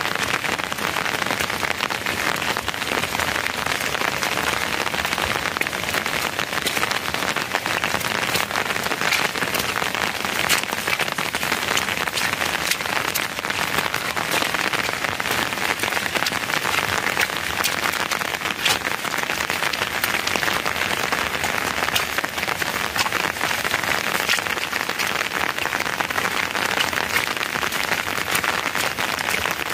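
Steady rain falling on a surface: an even hiss of drops with many small, sharp taps throughout.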